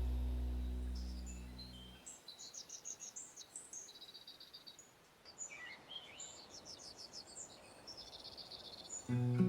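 Small songbirds chirping and twittering in quick high trills and short repeated notes, as guitar music fades away. The acoustic guitar music comes back in near the end.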